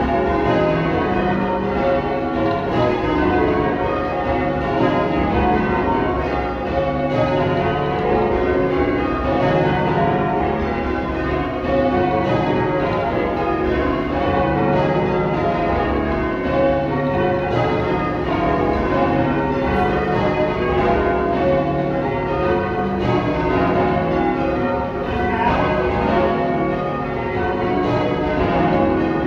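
Change ringing on a ring of twelve church bells, tenor 28 cwt in C sharp: a continuous, even stream of struck bell notes following one another in rows, each note ringing on under the next.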